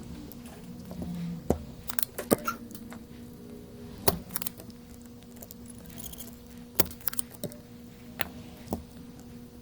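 Scattered light metallic clicks and taps, about ten of them at uneven intervals, from small hand tools working on a PS5 power supply circuit board, over a steady low hum of bench equipment.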